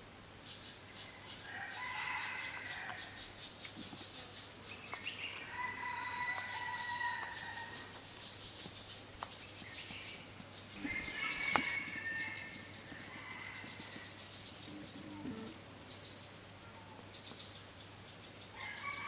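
Rural daytime ambience: a steady, high-pitched insect drone that becomes a fast pulsing trill about eleven seconds in, with roosters crowing several times over it.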